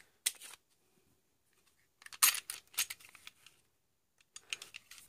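Ruger SR40 pistol being handled: clicks, rattles and metal scraping from the slide and frame, in three short groups, the loudest about two seconds in.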